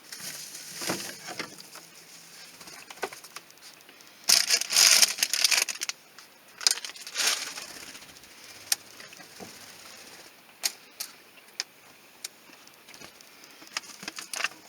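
Packaging rustling and containers clicking and knocking as food is handled and packed into an RV refrigerator. The rustling is loudest a few seconds in, with sharp separate clicks throughout.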